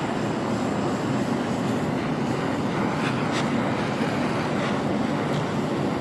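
Steady roar of a flame heating the forged hammer eye punch to temper it, an even rushing noise with no breaks.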